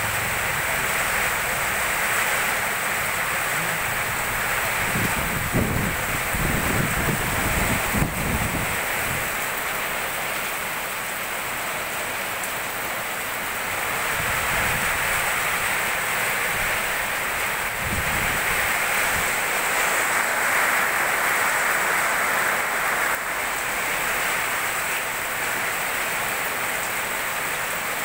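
Heavy tropical rain pouring down, a steady loud hiss of rain on the street and roofs. A few low, irregular rumbles come through about five to nine seconds in and again near eighteen seconds.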